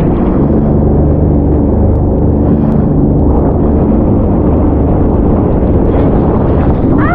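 Sea-Doo jet ski running steadily at speed over choppy sea, its engine drone mixed with rushing water and spray.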